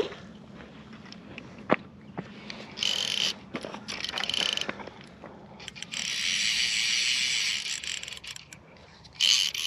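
Fly reel buzzing in spurts as line runs on and off the spool while a large rainbow trout is being played. There are short spurts about three and four seconds in, a longer one of about two seconds from about six seconds in, and another just before the end.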